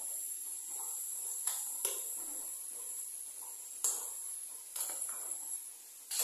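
A few short, sharp clicks of a metal spoon against steel cookware while ingredients are added to a pan, over a steady faint high hiss.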